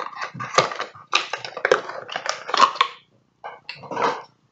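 Makeup products and packaging being handled and rummaged through: a run of short clicks, knocks and crinkly rustles. It stops about three seconds in, and a last handful comes near the end.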